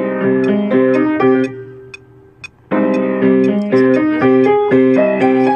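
Acoustic piano played with chords: a phrase that dies away after about a second and a half, then starts again near three seconds. Steady clicks keep time about twice a second under the playing.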